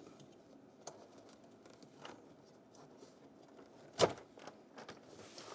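Quiet handling of a plastic wiring-harness connector on a Jeep door, with a few faint clicks and one sharp click about four seconds in as the plug is worked loose.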